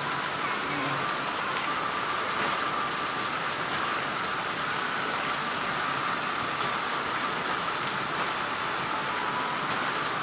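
Heavy rain falling steadily, a continuous even hiss of drops with no thunder heard.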